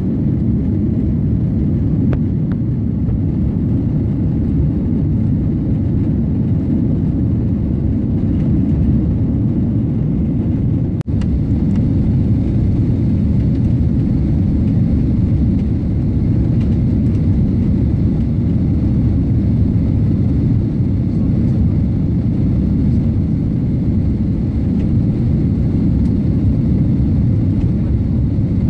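Steady low rumble of an airliner's jet engines and rushing air, heard inside the cabin during the climb after take-off. A brief dropout comes about eleven seconds in.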